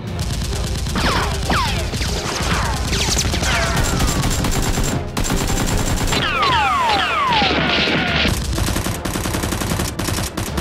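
Gunfire sound effects: rapid, continuous automatic fire, with clusters of falling whistles about a second in, around three seconds in, and again around six to eight seconds in.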